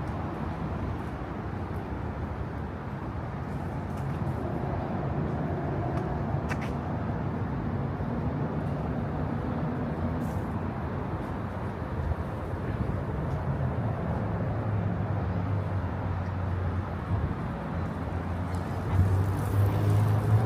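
Steady low rumble of vehicle engine noise. A deeper, even engine hum grows stronger in the last several seconds.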